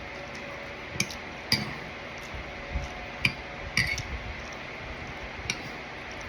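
Cutlery clinking against a dish while eating, about five separate sharp clinks at irregular intervals.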